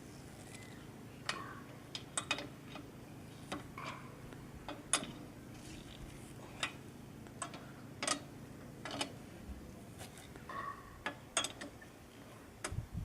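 Lug wrench clicking and clinking against the wheel's lug nuts as they are tightened in a cross pattern: irregular sharp metal clicks, about one or two a second, over a faint steady low hum.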